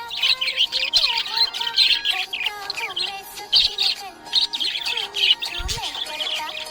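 Budgies chirping and warbling, a continuous run of quick high chirps with gliding lower notes.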